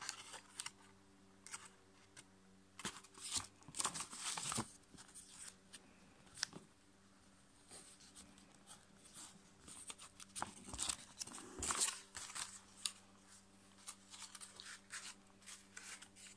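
Folded copy paper rustling and crinkling under the fingers as a paper airplane is creased and shaped by hand: scattered short crackles and swishes, with a faint steady hum beneath.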